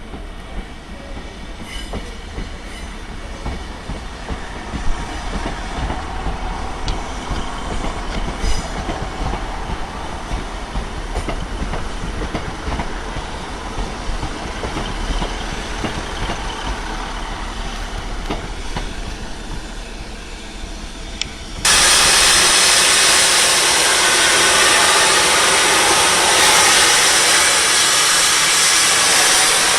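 A train moving along the track, with scattered clicks over its steady rumble. About three-quarters of the way through, a much louder steady hiss suddenly starts and covers everything else.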